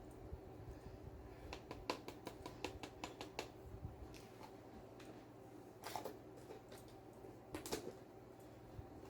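Faint clicks and knocks of kitchen utensils against dishes as toppings are added to a taco salad: a quick run of clicks about two to three seconds in, then two short scraping sounds around six and eight seconds, over a low steady hum.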